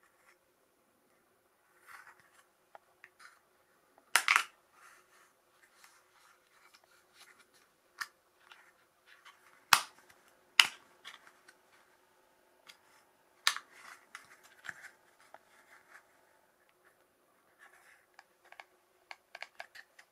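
Small plastic tackle box handled, its clear compartment lids snapping open and shut: several sharp plastic clicks with quieter rubbing and tapping between them.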